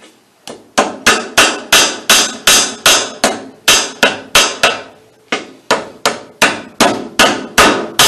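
A one-pound ball-peen hammer striking Alligator lacing rivets through a round-baler belt held in an Alligator Rivet splicing tool, in a quick run of about three strikes a second with a short pause near the middle. The rivets are being started in the outside holes and driven partway, not yet set.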